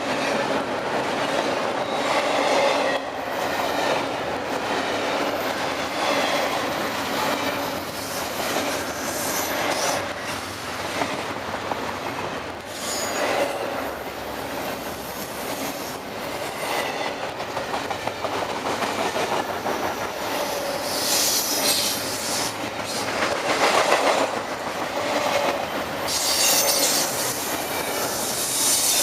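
Intermodal freight cars rolling past: steady rumble of steel wheels on rail with clickety-clack over the rail joints, and bursts of high-pitched wheel squeal about three quarters of the way through and again near the end.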